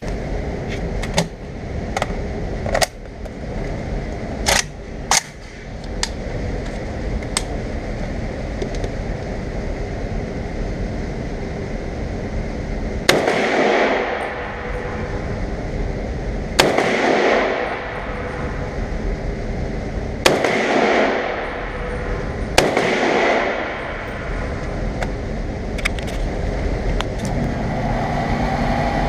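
Rifle shots on a shooting range, from the test firing of a rebuilt MAK-90 AK-pattern rifle. Several sharp single shots come in the first eight seconds or so, then four louder shots three to four seconds apart, each followed by a long echo.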